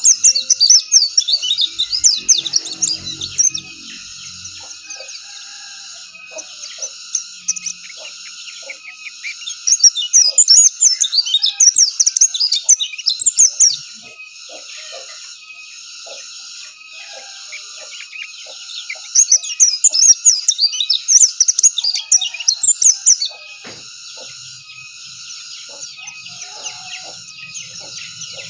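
Pleci dakun, a white-eye, singing in three long bursts of rapid, high twittering, each a few seconds long and about ten seconds apart, with softer chirps in between.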